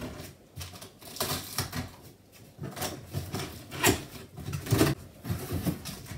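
Scissors cutting and tearing through the packing tape on top of a cardboard box, heard as irregular scraping and crackling with a few sharper strokes. Near the end the cardboard flaps are pulled open.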